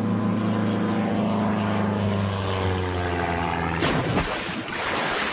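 Sound effect of a small propeller airplane going down: the engine's pitch slowly falls for about four seconds, ending in a sudden crash followed by a noisy wash that fades out.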